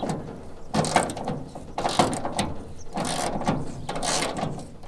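Ratchet wrench clicking in short back-and-forth strokes, about one a second, working a rusty bolt that has been soaked in penetrating oil loose.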